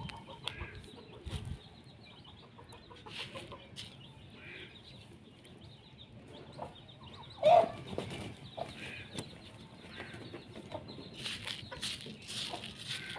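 Domestic chickens clucking on and off, with one loud squawk about seven and a half seconds in.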